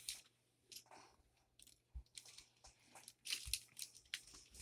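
Faint, scattered plastic clicks and rustles from handling a Lego Technic mobile crane model as its parts are turned.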